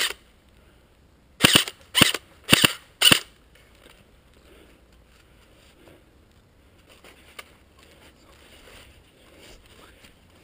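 Airsoft electric rifle, an M4-style G&G CM16 Raider DST, firing four short bursts of rapid shots close to the microphone, starting about a second and a half in. After that there is only faint background noise, with one small click near the middle.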